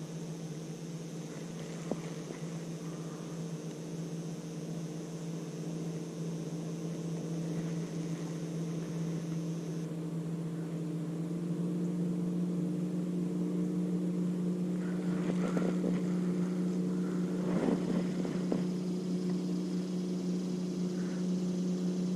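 Motorboat engine humming steadily, growing gradually louder as the boat comes nearer.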